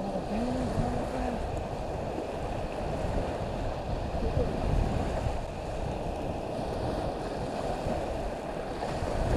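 Surf washing onto the beach with wind buffeting the microphone, a steady noise with no distinct events.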